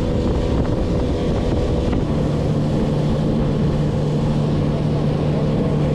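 Bass boat's outboard motor running at speed across open water, with wind on the microphone and water rushing along the hull. The engine note shifts about two seconds in and then holds steady.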